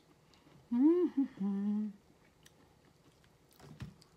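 A woman humming briefly with her mouth closed about a second in: a rising-and-falling 'mm' followed by a short held lower 'mmm'. Faint small clicks of hands handling shrimp shells, and a low thud near the end.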